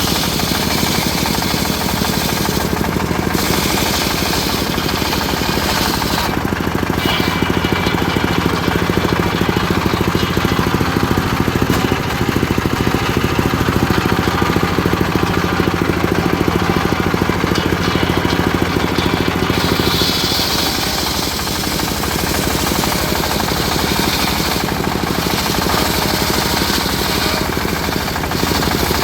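Engine-driven homemade circular sawmill running steadily while ripping an old black teak log: a constant chugging engine under a higher sawing noise that comes and goes several times as the blade works through the cut.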